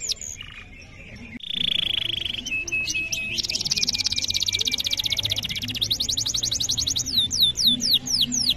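Domestic canary singing a long, continuous song. After a brief lull at the start comes a buzzy roll, then a very fast trill, a run of repeated notes, and a series of quick downward-sweeping whistles.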